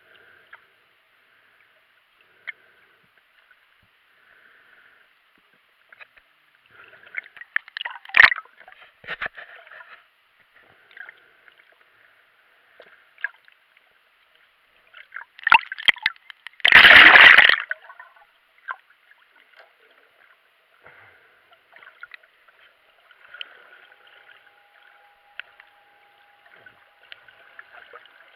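Underwater sound as picked up by a GoPro in its waterproof housing: a faint, crackly hiss of water, with a short loud rush of water and knocks about eight seconds in and a longer, louder rush of water around seventeen seconds. A faint steady hum joins in during the last few seconds.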